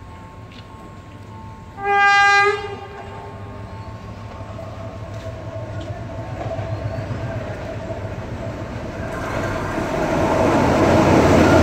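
Diesel train approaching at speed: its locomotive horn sounds once for about a second, then the rumble of the engine and the wheels on the rails grows steadily louder as it nears.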